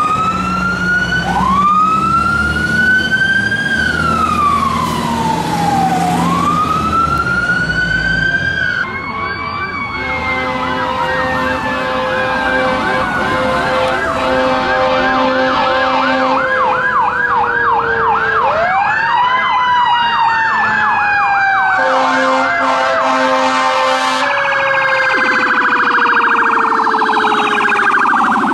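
Fire truck sirens: a slow rising-and-falling wail switches to a fast yelp about a third of the way in, with short air horn blasts over it. A second siren slides slowly down in pitch through the second half, and a low buzzing tone comes in near the end.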